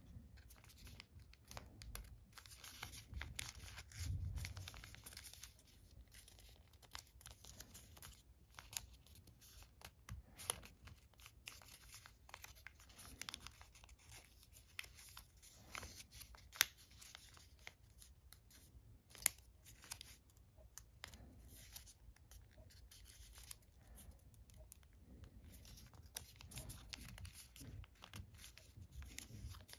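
Faint rustling of origami paper as fingers tuck and press folded units together, with scattered sharp crackles of creasing paper and a soft bump about four seconds in.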